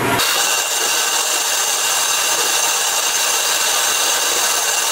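Wet/dry shop vacuum running steadily, a whine over the rush of air, as its nozzle is drawn across a carpeted car floor mat to pick up loose dirt and dog hair before cleaning.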